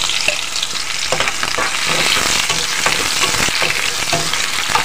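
Sliced onions sizzling as they fry in hot mustard oil, with a utensil stirring them and making irregular scrapes and clicks against the pan.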